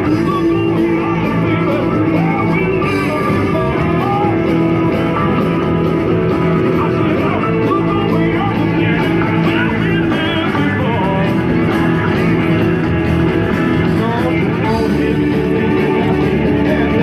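Rock music with guitar and a singing voice, playing steadily.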